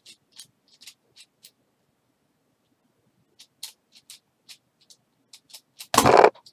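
Tiny 3 cm MeiLong keychain 3x3 puzzle cube being turned quickly in a speed solve: short plastic clicks of the layers turning, a pause of about two seconds, then more clicks. About six seconds in comes a loud slap of hands coming down on the speed-stacks timer to stop it.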